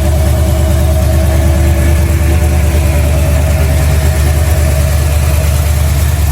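1971 Chevrolet C10 pickup's carburetted engine idling steadily, still cold from its start-up.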